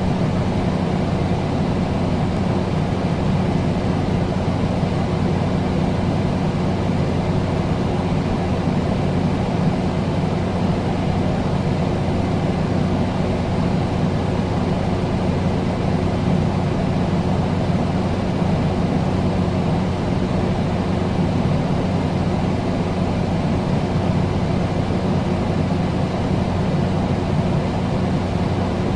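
Air conditioner running: a steady rush of air over a low, even hum.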